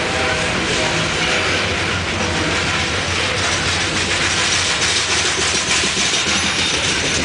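Loaded coal hopper cars of a freight train rolling past close by: steady noise of steel wheels on the rails, with rattling from the cars.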